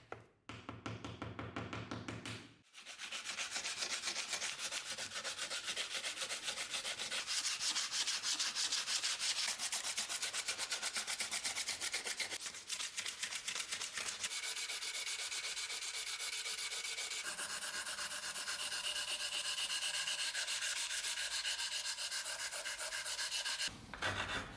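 Sanding with quick, even back-and-forth strokes, rubbing steadily for about twenty seconds after a short pause a couple of seconds in.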